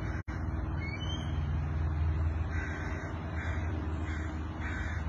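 A crow cawing four times in quick succession from about halfway through, as it harasses a perched eagle. A steady low rumble runs underneath.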